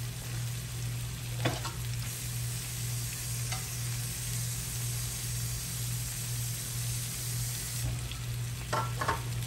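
Flour and oil sizzling steadily in a frying pan as a roux browns, over a steady low hum. A light knock comes about one and a half seconds in and a couple more near the end.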